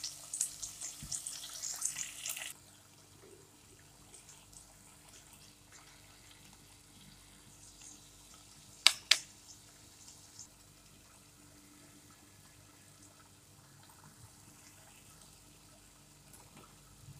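Chopped tomatoes and onion sizzling in hot oil in a non-stick saucepan, cutting off abruptly after about two and a half seconds. Then faint, quiet background with two sharp clicks close together about nine seconds in.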